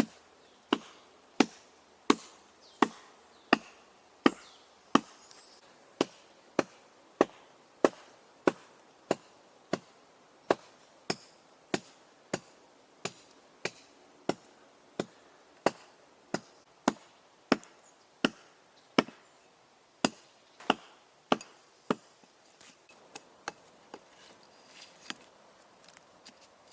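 Wood being chopped with an axe: steady, evenly spaced strokes, a little under one and a half per second. About three-quarters of the way through they give way to a few lighter, irregular knocks.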